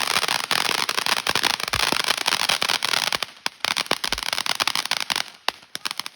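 Firework crackling: a dense run of rapid small pops and snaps, easing off briefly about three seconds in and again near the end.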